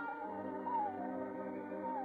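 Orchestral cartoon score: sustained chords under a wavering lead line that slides down in pitch and climbs back up near the end.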